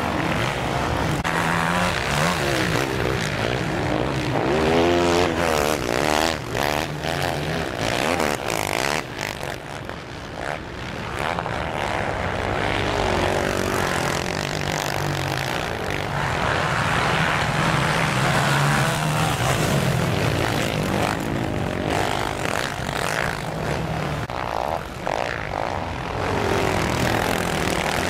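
Racing quad (ATV) engines revving hard through deep sand, several at once, their pitch rising and falling with the throttle.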